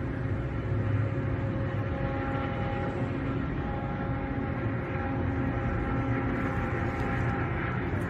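MARC multilevel commuter train pulling away from the station, a steady low rumble with several held humming tones over it.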